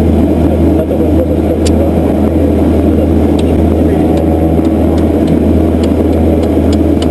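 Steady drone of the Let L 410 UVP-E20's twin GE H80-200 turboprop engines heard in the cockpit, with a run of sharp clicks from overhead-panel toggle switches being flipped off, one or two a second from the middle on.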